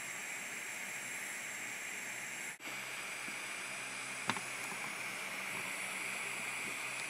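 Butane soldering iron with a blowtorch tip hissing steadily as it heats the legs of a surface-mount chip to melt the solder. The hiss cuts out for an instant about two and a half seconds in, and there is one light click about four seconds in.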